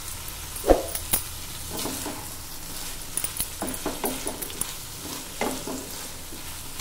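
Wooden spatula stirring and scraping chunks of potato, brinjal and whole moong beans around a nonstick kadai, over a low sizzle of frying. A sharp knock against the pan comes about a second in, and a run of quicker scrapes and taps follows in the second half.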